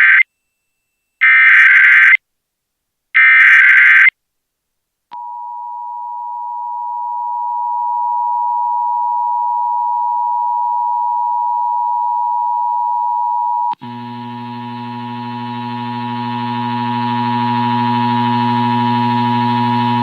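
Emergency Alert System SAME header: three bursts of digital data screech, each about a second long and a second apart. About five seconds in, the EAS two-tone attention signal (853 and 960 Hz) starts, swells, and holds a loud, steady tone. About fourteen seconds in it cuts abruptly to a harsher, buzzier tone with a low hum beneath, which swells again.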